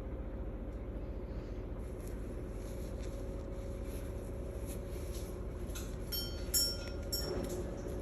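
A steady low hum, with scattered light clicks and a short high squeak from a parrot about six and a half seconds in.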